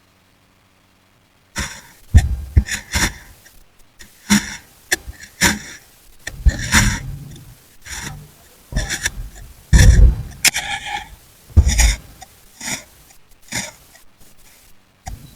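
Knife cutting through packed kinetic sand: a string of crisp crunching, scraping cuts with soft thuds of sand falling away, starting after about a second and a half of silence.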